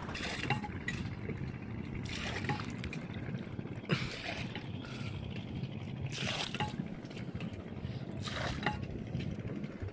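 Water splashing and trickling against a wooden boat, in soft surges about every two seconds over a steady low rumble.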